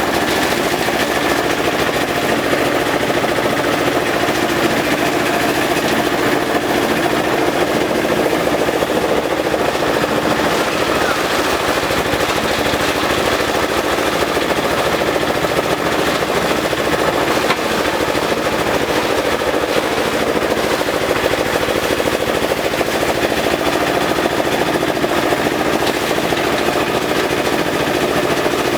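Compost shredder machine running, making a steady, dense rapid clatter as it chops elephant grass for livestock feed.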